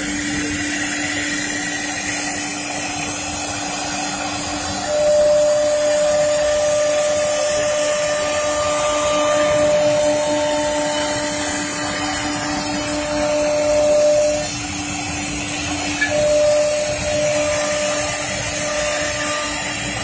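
CNC router spindle running with a steady whine while its bit cuts grooves into a wood panel. A second, higher tone comes in about five seconds in, drops out briefly, then returns.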